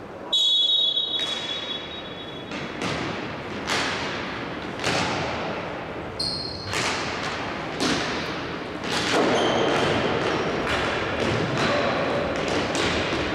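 Indoor hockey game sounds in an echoing sports hall: a referee's whistle blast of about a second, then a string of sharp knocks from sticks hitting the ball and the ball striking the side boards. A second, shorter whistle sounds about halfway through.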